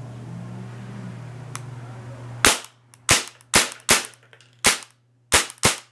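CO2-powered MAC-11-style airsoft gun fired on semi-auto: seven sharp shots in just over three seconds, unevenly spaced, starting about two and a half seconds in.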